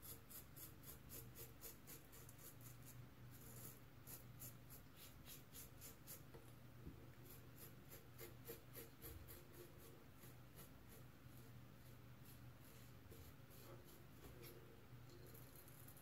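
Faint scraping of a Merkur 34C double-edge safety razor with an Astra SP blade cutting through lathered stubble around the mouth and chin, in short quick strokes of about four a second, coming in runs with brief pauses.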